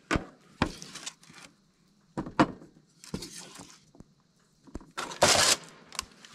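Scattered clinks and knocks of a serving spoon and utensils against plates as food is dished out. About five seconds in comes a short scraping rush as a metal baking pan is drawn out of a camp oven.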